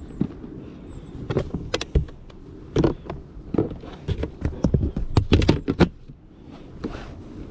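Clear plastic storage box knocked and rattled while being handled and set down inside a car, making a run of sharp plastic knocks and clicks that come fastest a few seconds in.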